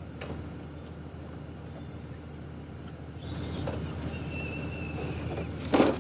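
Steady low hum of an idling vehicle engine, with a single sharp, loud knock near the end.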